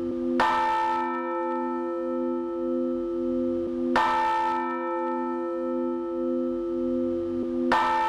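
Church bell struck three times, about three and a half seconds apart, each stroke ringing out over a deep, steady bell hum whose lowest tone pulses slowly.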